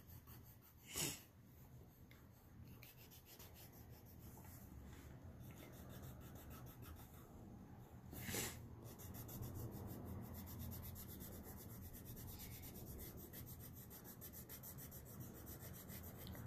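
Faint scratchy rubbing of a black crayon-type drawing stick scribbling back and forth on paper as a drawing is shaded in. Two short, sharp noises stand out, about a second in and about eight seconds in.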